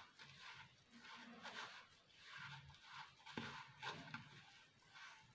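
Faint, irregular scraping and rustling of a hand rubbing and squeezing a crumbly flour, curd and butter mixture in a bowl to form dough.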